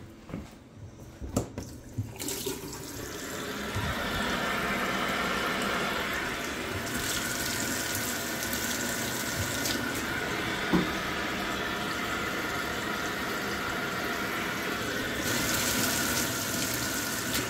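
Kitchen mixer tap running steadily into a ceramic sink, drawing hot water from the combi boiler to test it. A few knocks come just before the water starts about two seconds in, and there is one more knock midway.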